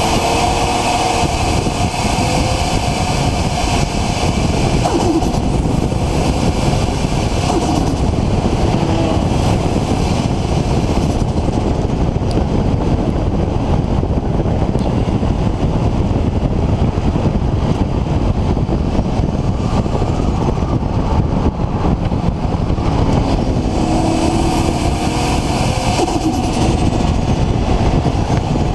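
Nissan RB26 straight-six with a single Garrett GTX4088R turbo running hard, a loud steady engine and exhaust rush. A high turbo whistle rises and falls near the start, about a quarter in and again near the end.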